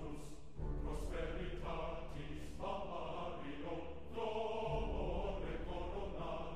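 A group of voices chanting together in long held notes that change pitch about once a second, over a steady low hum.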